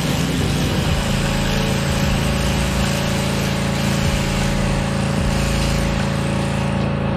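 Background music: a steady, dense track with sustained low notes.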